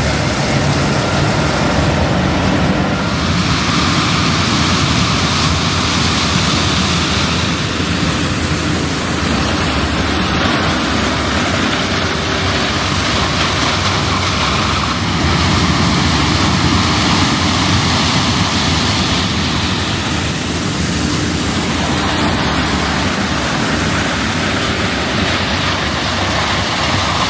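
Claas Lexion 750 combine harvester running under load while harvesting corn: a steady loud roar of engine and machinery with a low engine hum underneath.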